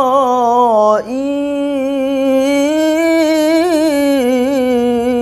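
A young man reciting the Quran in melodic tilawah style, drawing out long ornamented notes whose pitch wavers up and down. There is a brief break about a second in, then he carries on holding the line.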